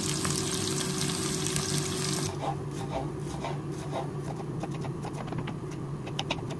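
Sliced onions sizzling in hot oil in a pot; after about two seconds this cuts off and is replaced by a knife chopping a tomato on a wooden board, a run of knocks about two a second.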